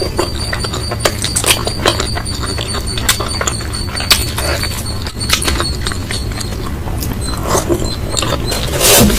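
Close-miked eating: chewing and wet mouth smacking, a quick irregular run of sharp clicks, louder near the end.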